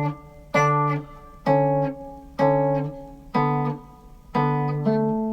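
Guitar fingerpicked: a low bass note picked under a higher melody note pinched with it, about one stroke a second, with two notes coming closer together near the end where the rhythm changes.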